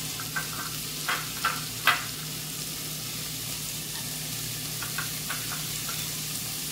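Diced red onion and garlic sizzling in hot oil in a stainless steel pot, the first stage of a sofrito, with a steady hiss. A few light clicks and knocks come about one to two seconds in, and fainter ticks around five seconds in.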